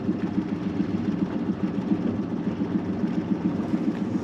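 An engine idling steadily with a low, even, fluttering rumble.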